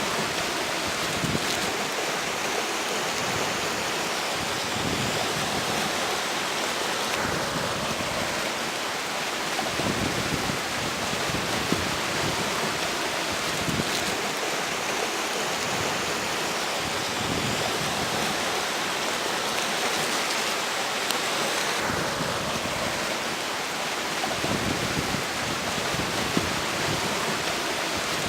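River water flowing steadily with strong wind blowing over it. The wind comes in gusts that swell and fade every few seconds, adding a low rumble.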